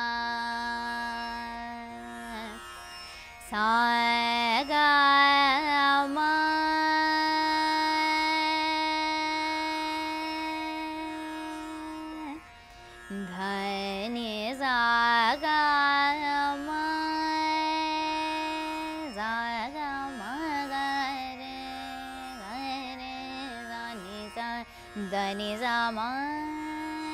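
A woman singing slow Hindustani classical phrases in Raag Bageshri, holding long notes joined by quick, wavering ornamental turns, over a tanpura drone she plucks herself.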